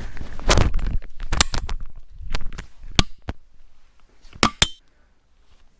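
Handling noise: a string of sharp clicks and knocks of objects being picked up and set down, ending in a sharp double knock a little over four seconds in.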